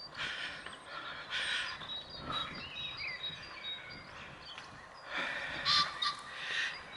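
Wild birds singing: a mix of short calls, chirps and thin high whistles that come and go.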